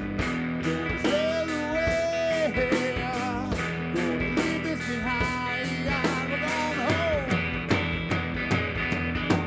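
Rock music with a sung melody over guitar and a steady drum beat.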